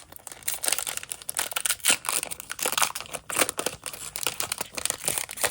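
A sealed pack of 1990-91 SkyBox basketball cards being torn open, the wrapper crinkling and crackling in a dense, irregular run of small crackles.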